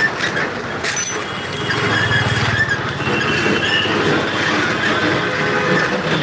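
Street traffic noise, with high squeals that come and go and a brief low engine hum about two seconds in.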